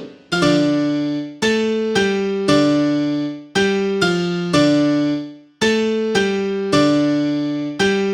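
MIDI keyboard rendition of an Android ringtone melody in a piano-like tone: about a dozen struck notes and chords, each dying away, with a short phrase played twice and a brief gap between them.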